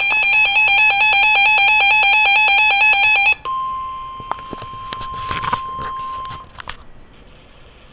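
Emergency Alert System attention tones. A loud, fast-pulsing electronic tone pattern runs for about three and a half seconds, then switches abruptly to one steady tone that lasts about three seconds, broken by a few crackles. It cuts off about six and a half seconds in, leaving a faint hiss.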